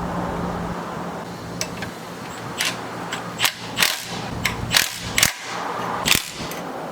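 Irregular sharp metallic clicks and clacks of hand tools and parts being handled, over a steady low hum.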